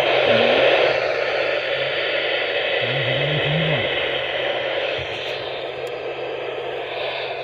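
Radio static: a steady hiss from a radio receiver, easing slightly after about five seconds, with faint traces of a voice buried under it.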